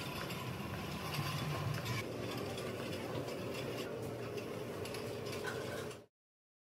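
Rattling and clicking of a wheeled IV pole's casters and fittings as it is pushed along, over steady background noise. The sound cuts out abruptly about six seconds in.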